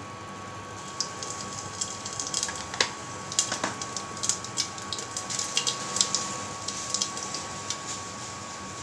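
Cumin seeds sizzling and crackling in hot oil in a pressure cooker, the first step of a tadka. Irregular sharp pops begin about a second in over a faint steady high tone.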